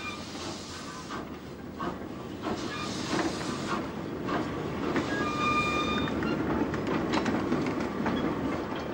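Narrow-gauge goods wagons being shunted, rolling and clanking over the rails with irregular clicks and knocks and a couple of brief squeals about five seconds in.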